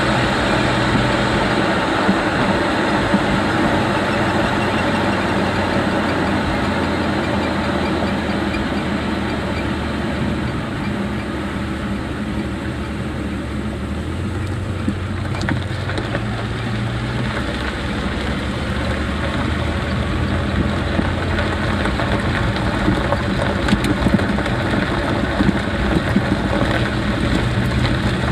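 Jeep driving at low speed: engine running under steady road and tyre noise, the engine note rising for a few seconds about halfway through, with a few sharp ticks near the end.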